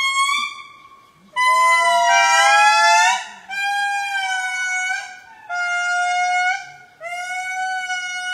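Lemurs calling: four long, steady, high-pitched calls, each about one to one and a half seconds, in quick succession, with two voices overlapping in the first.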